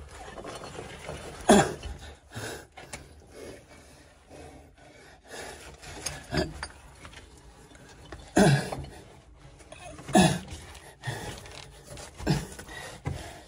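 A man's short, heavy breaths and gasps from the effort of crawling through a tight cave passage, about six of them spaced a second or two apart.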